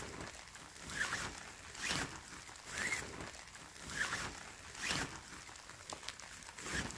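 Tent pole being fed through the nylon sleeve of a Coleman dome tent in short pushes: a rustling scrape of fabric about once a second.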